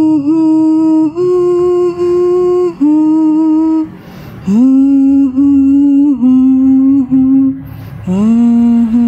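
Someone humming a slow tune in long held notes with small slides between them, breaking off briefly about four seconds in and again near the end.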